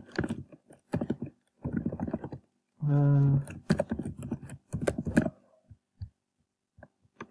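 Typing on a computer keyboard as a password is entered, in quick runs of key clicks, with a short hummed 'mm' about three seconds in. The typing stops a little past five seconds in, leaving a few faint clicks.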